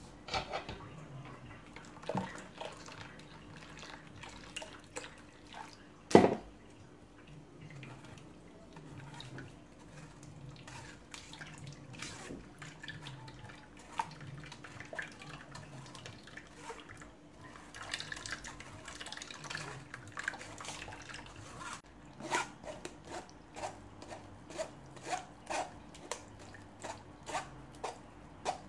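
Metal spoon scraping and tapping against a stainless steel mesh sieve as soup is pressed through it, with liquid dripping and trickling into the pot below. Scattered sharp taps, one louder knock about six seconds in, and a quicker run of regular taps near the end.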